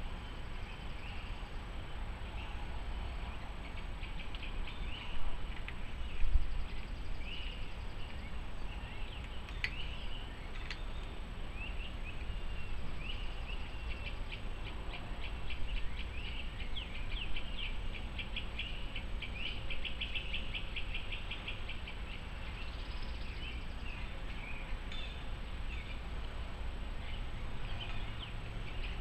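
Outdoor ambience of birds chirping, with short calls and rapid trills, over a steady low rumble. A couple of brief thumps stand out about five and six seconds in.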